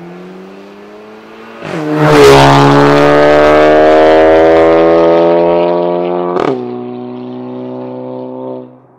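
Volkswagen Golf GTI Mk7's turbocharged four-cylinder accelerating hard in a drive-by, heard through a catless downpipe and valved cat-back exhaust with the valves open. The engine note rises steadily and gets much louder about two seconds in. About six and a half seconds in there is a sharp crack and a drop in pitch as it shifts up, and the sound cuts off near the end.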